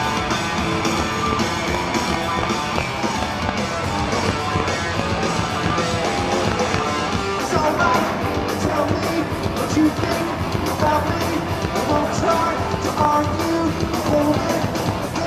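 Live rock band playing loud through a concert PA, heard from inside the crowd: electric guitar, bass and drums in a dense, unbroken wall of sound.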